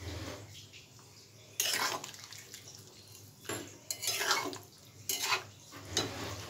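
A spatula stirring chicken and vegetables in thin gravy in a kadai, mixing in soy sauce just poured in. About five sharp scrapes and clinks against the pan come in the second half.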